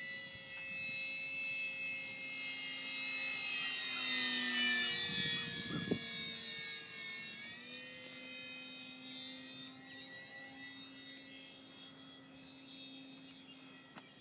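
Parkzone P-47 electric RC plane's motor and propeller whining in flight. The sound grows louder toward a peak as the plane passes, then drops in pitch and fades. There is a brief low thump about six seconds in.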